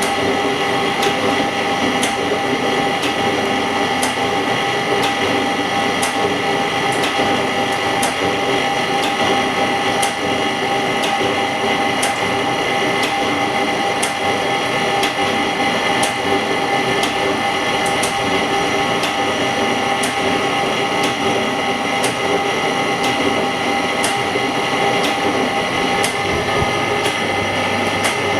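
Semi-automatic LCD separator running, its motor drawing a steel cutting wire through to split cracked glass from an iPhone LCD: a steady mechanical whir with a light tick about once a second.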